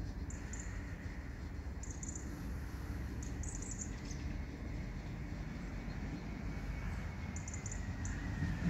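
Regional train approaching on a curve, a low steady rumble growing slightly louder as it nears. Short high bird chirps come several times above it.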